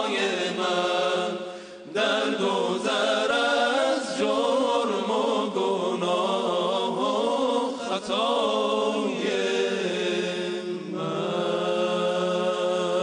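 Group of men singing a devotional chant together, with winding melodic lines and long held notes near the end. The sound dips briefly just before two seconds in.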